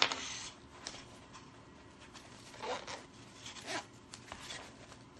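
Zipper on a small fabric crossbody bag being worked open in a few short rasps, with cloth rustling as the detached strap is tucked inside. A sharp click comes at the start.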